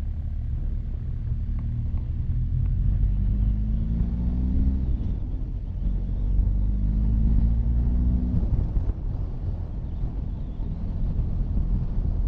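Motorcycle engine running under way over a low wind rumble. Twice its note rises for a few seconds and then breaks off as the bike accelerates.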